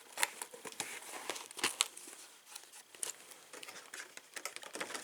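Packaging being handled: faint rustling and crinkling with scattered small clicks and taps as small door-hardware parts are put away by hand.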